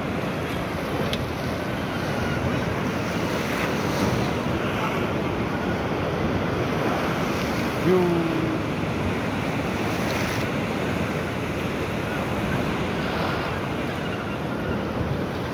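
Heavy ocean swell surging and breaking against a rock shelf, with wind buffeting the microphone. A short pitched sound stands out briefly about eight seconds in.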